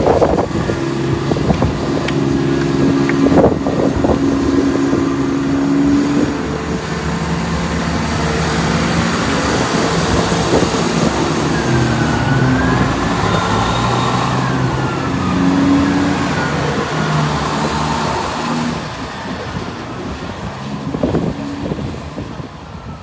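CrossCountry Class 170 Turbostar diesel multiple unit pulling away from the platform, its underfloor diesel engines working under power with the engine note shifting in steps. The sound fades over the last few seconds as the train draws away.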